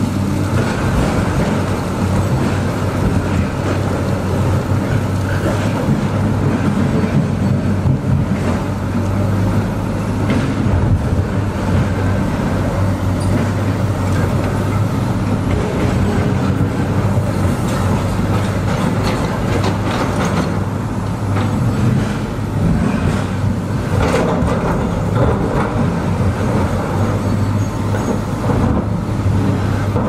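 Heavy construction machinery running: a steady low engine drone with a few sharp knocks and clanks now and then.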